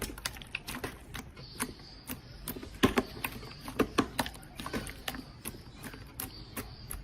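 Slime being pressed and kneaded by hand, giving quick, irregular clicks and pops several times a second, with a few louder pops near the middle.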